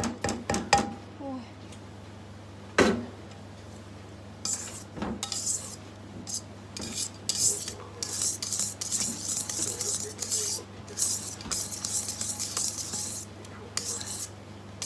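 Wire balloon whisk stirring cake batter in a stainless steel bowl, its wires scraping the bowl in quick, repeated strokes. Early on there are a few clinks and one sharp knock, about three seconds in, of a utensil against the bowl.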